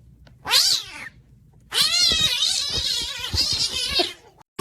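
Domestic cat meowing: one short meow about half a second in, then a long drawn-out yowl with a wavering pitch that stops shortly before the end.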